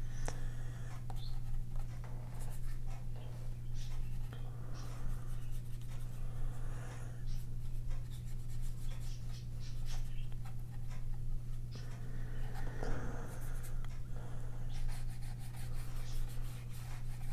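Paintbrush dabbing and stroking gouache onto sketchbook paper: a run of short, soft scratchy strokes. A steady low hum runs underneath.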